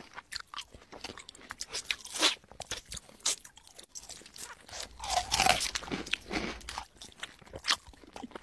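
A man eating rice by hand and chewing noisily with his mouth open: many short, irregular smacking and crunching sounds, with a longer, louder stretch about five seconds in.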